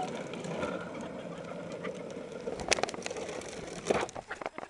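A toy pull wagon's wheels roll down an asphalt street with a steady rumble that slowly fades. A few sharp knocks come near the end as the wagon reaches the curb.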